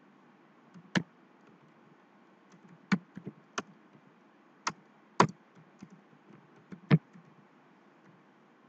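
Computer keyboard being typed on slowly and unevenly: separate sharp key clicks, mostly a second or so apart, with a few coming in quick pairs.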